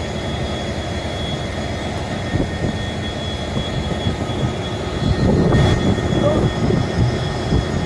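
Steady rushing outdoor noise of wind buffeting the microphone over flowing floodwater, swelling louder about five seconds in.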